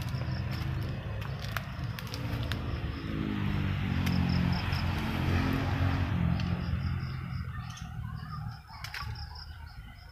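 A low, pitched motor hum that wavers in pitch and fades out after about seven seconds, with a bird giving runs of short high chirps and a few sharp clicks.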